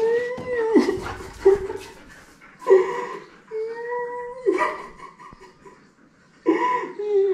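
Long, wavering, whimpering cries in several spells with short breaks, from a man fake sobbing into his hands and a German Shepherd puppy whimpering in answer.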